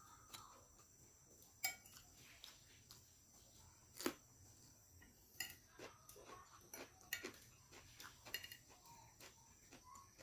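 Faint sounds of someone eating fried rice: soft chewing and mouth noises with scattered clicks of cutlery on a plate, the sharpest about one and a half and four seconds in.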